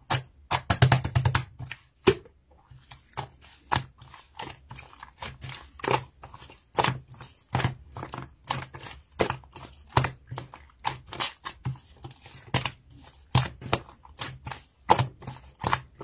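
Pink slime being kneaded, folded and squeezed by hand, giving an irregular run of sticky clicks and pops, a few each second.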